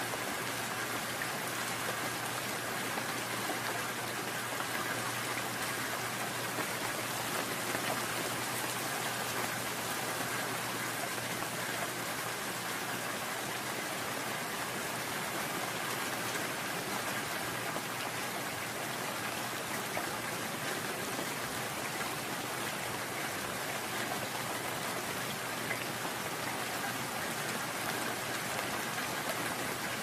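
Steady, gentle rainfall with dense raindrop patter.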